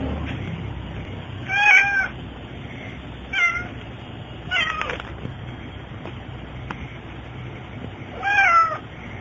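American Shorthair cat meowing four times, short meows spread a second or more apart. Recorded on a mobile phone.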